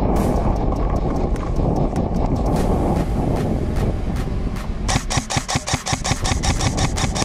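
Strong wind rumbling on the microphone throughout, with a rapid string of airsoft gun shots, about ten a second, starting about five seconds in.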